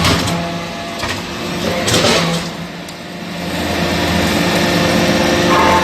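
Metal chip baler running in operation: a steady machine hum with a short harsher noise about two seconds in.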